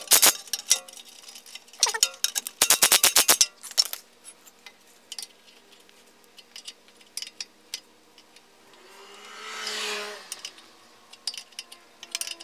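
Ratchet wrench clicking in quick runs, three of them in the first four seconds, as it turns a socket on the 18 mm ball-joint nut of a BMW E46 front control arm. A soft whoosh swells and fades about nine seconds in.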